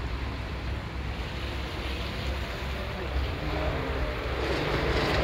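Wind on the microphone at the seashore, with water moving against the rocks and a low steady hum underneath. The sound grows louder near the end.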